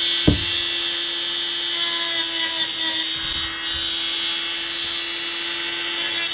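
Dremel rotary tool running at a steady high whine while grinding the cut-off ends of nails in a board, rounding off the tips that the cutting left out of round. A brief knock just after the start.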